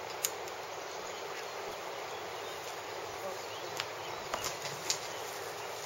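Steady, even outdoor background hiss with a few sharp clicks: one just after the start and a cluster about four to five seconds in.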